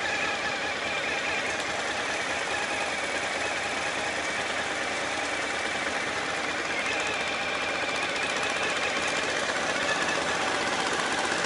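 Adventure motorcycle's engine running steadily while riding, a fast even engine beat under a steady rushing noise, getting a little louder near the end.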